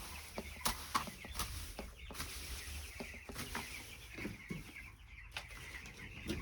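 A flock of broiler chickens cheeping and clucking together in a continuous chatter of many overlapping short high calls, with scattered light knocks.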